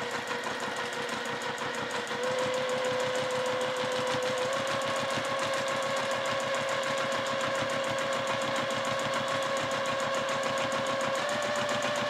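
Juki TL-2010 straight-stitch sewing machine running steadily during free-motion quilting: a rapid, even needle rhythm with a motor hum that steps up a little in speed a few times as the foot pedal is pressed harder.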